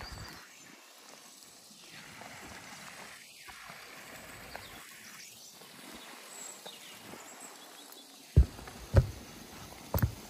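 Faint steady outdoor hiss, then three heavy low thumps close together near the end.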